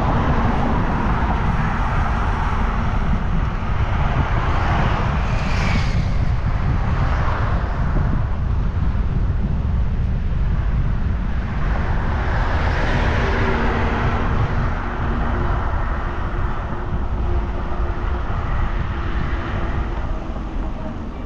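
Steady wind rumble on the microphone of a moving bicycle, with road traffic swelling past twice, about five seconds in and again about twelve seconds in.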